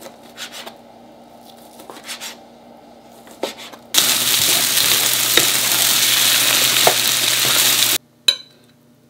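A knife tapping through diced char siu on a cutting board, a few quiet chops; then about four seconds of loud sizzling as fried rice is stir-fried in a hot pan with a wooden spatula, with a few scrapes, cutting off suddenly. Near the end a single clink of a metal spoon on a ceramic plate.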